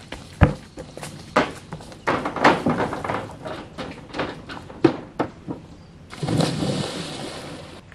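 Bare feet running and thudding on a wooden dock, a string of scattered knocks, then a longer rushing splash of water about six seconds in as a swimmer goes into the lake.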